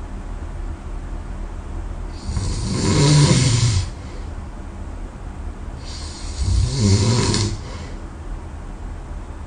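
A sleeping person snoring loudly: two long snores, one about two seconds in and one about six seconds in, each a low buzz with a breathy hiss, with quieter breathing between.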